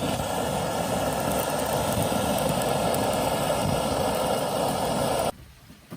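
A small motor whirring steadily after a click, cutting off suddenly after about five seconds.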